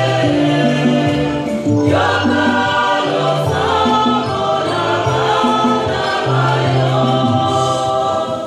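Church choir singing a hymn in several voices, with sustained low bass notes changing beneath the melody.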